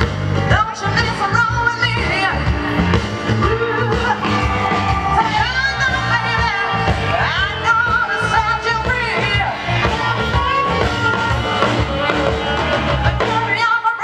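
Live soul band performing: a woman sings lead into a microphone over electric guitar and a steady bass beat.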